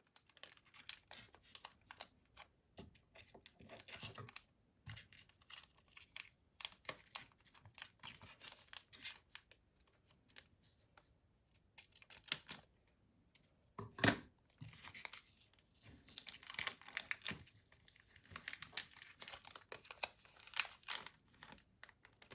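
Foil wrapper of a Pokémon trading-card booster pack being torn open and crinkled, with the cards inside being handled: scattered small crackles, one sharp snap about two-thirds of the way through, then a denser stretch of crinkling.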